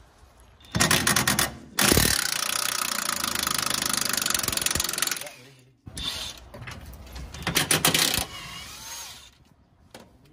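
A power tool run in loud bursts on the rear suspension bolts. A short rattling burst about a second in is followed by a steady run of about three seconds, then more rattling bursts near the end.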